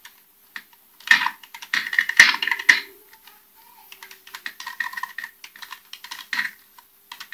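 Typing on an M-Tech MTK-01 mini keyboard: quick runs of key clicks, densest and loudest between about one and three seconds in, then lighter, sparser typing. The keys are not noisy.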